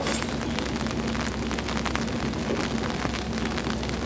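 Steady rain falling on the tracks, with the low steady hum of the diesel-powered replica Botchan train's engine running as the train moves slowly.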